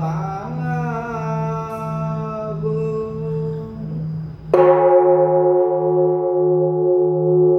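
A voice chanting over a low, pulsing hum. About halfway through, a Buddhist temple bell is struck once, sharply, and rings on with several steady tones while the low hum keeps pulsing.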